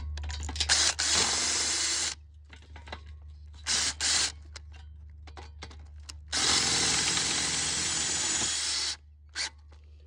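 Cordless drill driving self-drilling screws straight into the steel base rail of a metal carport frame, with no pilot holes. The drill runs in two steady stretches of about two seconds each, with short bursts in between and one near the end.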